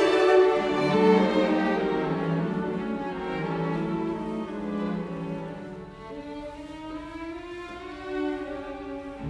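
Background music: bowed strings playing a slow melody of held notes, softening about halfway through.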